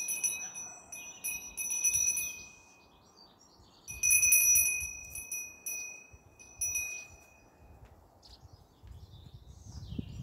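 Sanctus bells, a cluster of small altar bells, shaken in several jingling rounds a couple of seconds apart, rung at the elevation of the consecrated host.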